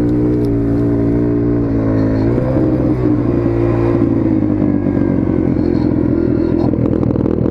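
Dirt bike engine running at a steady pitch, then revving up about two seconds in and carrying on with uneven, changing revs.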